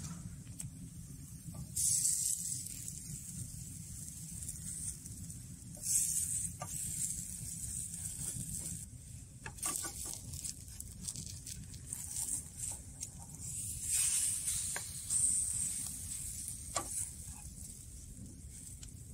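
Pancake frying in oil in a pan: a steady sizzle that swells several times, with scattered clicks and scrapes of a wooden spatula against the pan.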